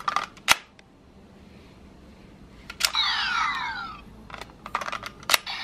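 Hard plastic clicks of a Gaia Memory being seated in and pulled from a CSM Lost Driver toy belt. About three seconds in, a sharp click sets off a short electronic sound effect of falling tones lasting about a second. More clicks follow near the end.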